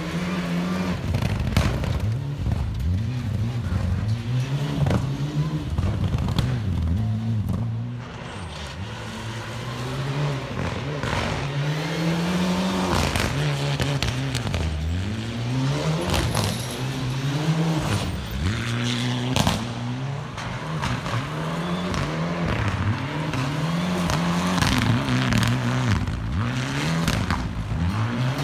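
Rally cars accelerating hard on a gravel stage, one after another: the engines rev up through the gears, the pitch climbing and dropping back again and again at each shift.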